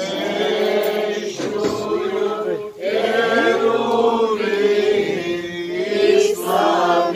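Several voices chanting a hymn together, held notes sliding between pitches, with a short pause for breath just before three seconds in.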